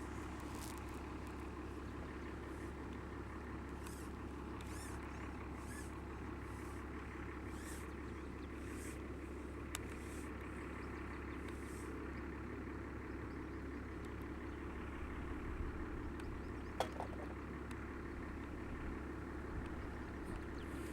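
Pond aerator's motor running with a steady mechanical hum. A faint hiss surges roughly once a second through the first half, and there are a couple of light clicks.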